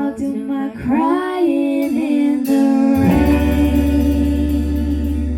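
Music: a voice sings a sliding line over plucked guitar, then from about three seconds in a closing chord with a deep bass note is held steadily.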